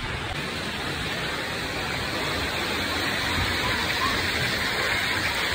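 Steady rushing hiss of falling and spraying water from water-park features.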